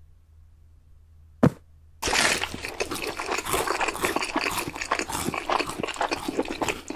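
A single sharp click about one and a half seconds in, then from about two seconds a dense, steady crackling sizzle.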